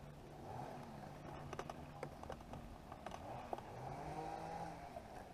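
Faint steady motor hum whose pitch drifts slowly up and down, with a few light clicks and taps from handling a hooked bass and lure.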